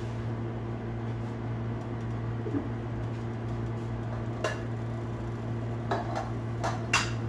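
Steady low hum in a small kitchen, with sharp clinks of a metal spoon against dishes, once about four and a half seconds in and several more near the end.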